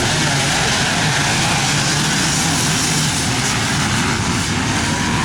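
A full row of off-road racing engines launching together off the start line and running at high revs, a dense, loud engine noise that comes on suddenly and holds steady.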